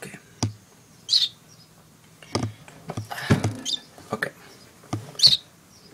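Baby songbird giving short, high begging chirps, a few times with gaps between, the loudest near the end. Duller knocks and rustles come in between.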